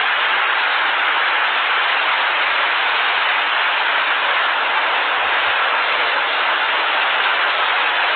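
Loud, steady rush of fast-flowing floodwater.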